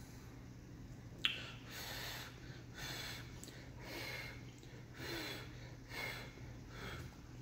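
A single sharp click about a second in, a fork against the glass bowl, then short breathy puffs roughly once a second: blowing on a forkful of hot noodle soup to cool it.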